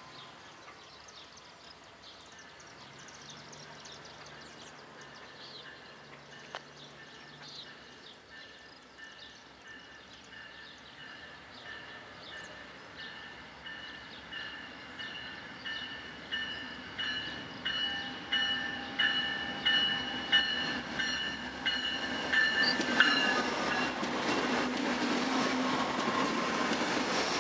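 Railroad grade-crossing bell ringing with regular strikes as an Amtrak train approaches. The train's rumble builds, and about 22 seconds in the diesel locomotive reaches the crossing and the bilevel passenger cars begin rolling past.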